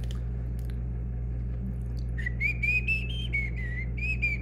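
A person whistling one long, nearly pure note that starts about two seconds in, its pitch gliding up and dipping a few times. A steady low hum runs underneath, with a click near the start.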